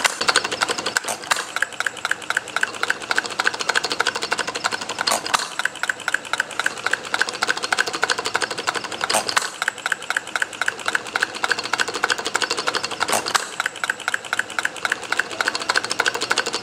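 Miniature bar-stock hit-and-miss engine running, its mechanism clicking rapidly and evenly, with a sharper crack about every four seconds.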